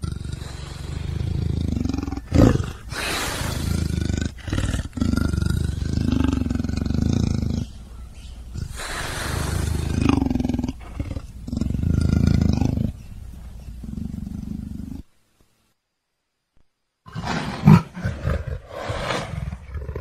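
A big cat growling and roaring in a string of long, low, rough calls. The calls break off about 15 seconds in and start again briefly near the end.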